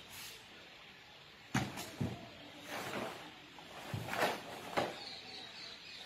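Sharp swishes and snaps of a karate gi, with bare feet stepping on a tiled floor, as punches and stance changes are made during a karate kata; about five quick snaps and whooshes spread through the few seconds.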